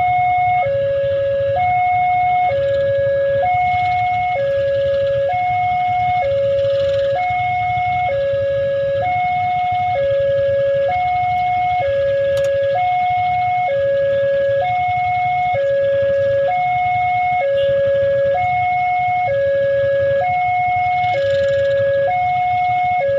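Railway level crossing's electronic warning siren, sounding a high and a low note in steady alternation, each under a second, over a low background rumble. It is the signal that a train is approaching and the crossing is closed.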